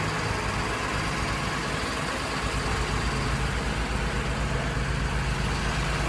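Heavy engine idling steadily, a low, even pulsing, typical of the working plant on a crane-assisted tree removal.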